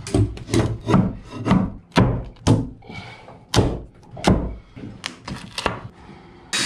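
Wooden interior panelling being pried loose with a flat pry bar: a string of irregular sharp knocks of metal on wood, with some rubbing between them.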